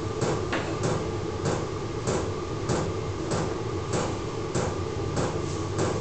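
Small 12 V diesel air heater running: its fuel pump knocks at a regular beat, a little under two knocks a second, over a steady hum.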